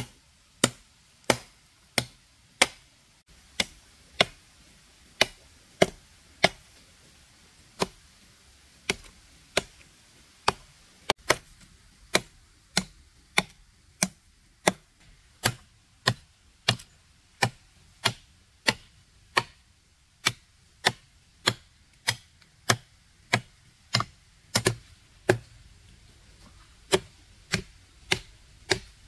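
A machete chopping into the base of a small tree trunk. Sharp, evenly spaced blows come about two a second, with one brief pause about a quarter of the way in, as the blade cuts a notch into the wood.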